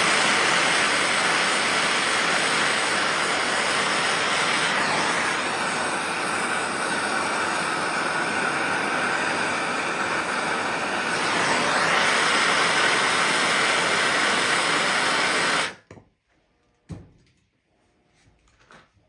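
A handheld gas torch burning with a steady hiss, heating a stripped, threadlocked metal screw to loosen the thread-locker. The flame cuts off suddenly about three-quarters of the way through, followed a second later by a brief knock.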